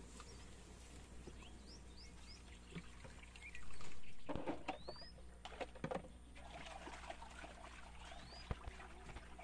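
Water pouring and splashing in one loud surge about midway that fades over a second or so, with small splashes and clicks around it. Short rising bird chirps come now and then.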